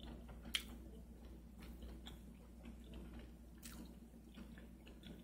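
Faint chewing of a mouthful of food, with a few soft clicks, two of them a little louder, about half a second in and near the end.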